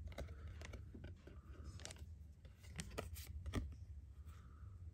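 Faint handling of a trading card and a foil booster-pack wrapper, with a few light clicks and rustles as the card is turned over in the fingers.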